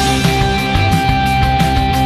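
Loud background rock music with guitar and a steady drum beat.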